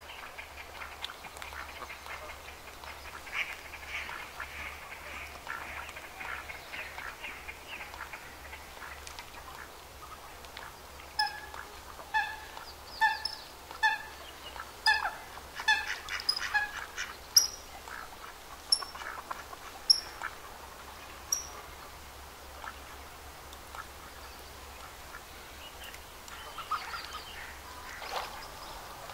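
A waterbird giving a series of about a dozen short, honking calls, roughly one a second, with a few higher, thinner calls mixed in. Before and after the calls there is only a faint background of distant bird chatter.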